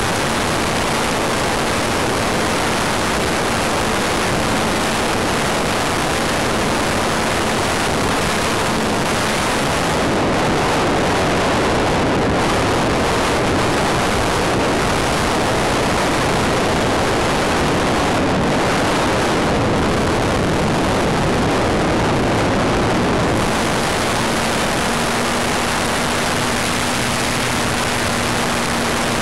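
Steady rush of airflow over the on-board camera of a Wot 4 RC model plane in flight, with a faint steady drone from its power plant underneath that fades out through the middle and comes back a little higher near the end.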